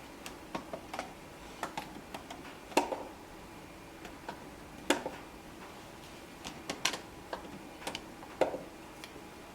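Plastic magnetic building tiles being handled, with irregular light clicks and taps and a few louder clacks.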